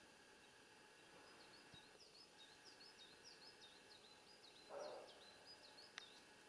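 Faint small songbird singing a long run of quick, short high chirping notes, over quiet open-air background. Just under five seconds in there is one brief, louder low rasping noise.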